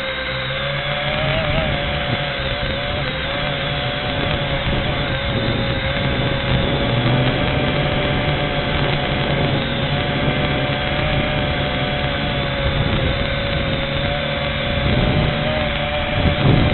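V686G quadcopter's motors whining steadily in flight, their pitch wavering slightly as the throttle changes, with wind buffeting the microphone as a low rumble.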